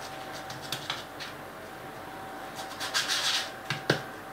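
A fluted plastic cookie cutter and cookie dough being handled on a countertop: soft rubbing and scraping with light clicks, a louder rasping rub about three seconds in, and a sharp tap just before the end. A faint steady hum runs underneath.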